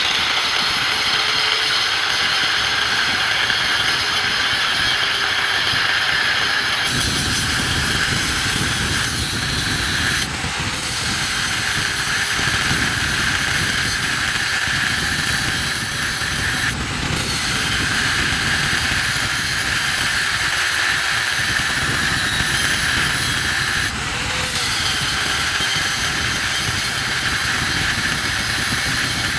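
Steady, loud machine-like rushing noise, dipping briefly three times.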